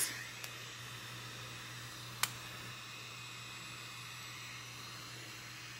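L'ange Le Duo curling iron's built-in fan running steadily, a soft even whirr and hiss as it blows air over the hot barrel to cool and set the curl. A single sharp click about two seconds in.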